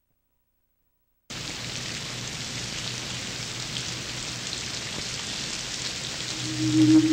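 A steady hiss with a faint low hum starts suddenly about a second in. Near the end a low tone swells up loudly and fades.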